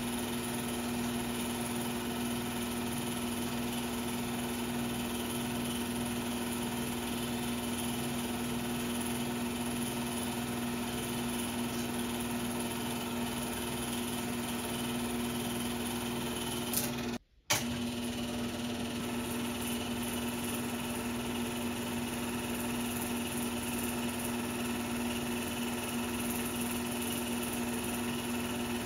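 16mm film projector running steadily, a constant mechanical drone with a low hum and hiss; the sound cuts out for a split second a little past halfway.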